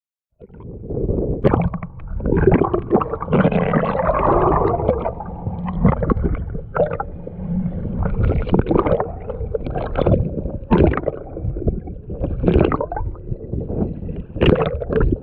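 Seawater sloshing, gurgling and splashing against a microphone held at the waterline, the sound coming and going in irregular splashes.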